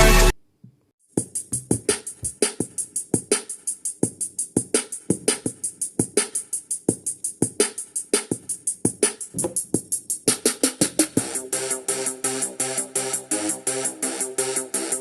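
Electronic music played on a BS-151 Bluetooth speaker. A loud, bass-heavy track cuts off just after the start. After about a second of silence, a new track begins with a fast, steady drum-machine beat, and synth chords join about ten seconds in.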